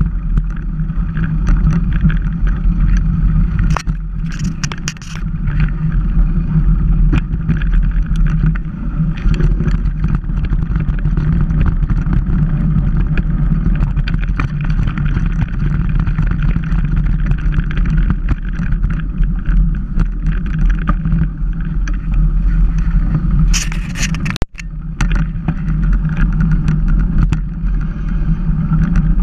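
Mountain bike riding over a gravel and dirt track: a steady low rumble of tyres and bike, with short rattles about four seconds in and again near twenty-four seconds, where the sound briefly drops out.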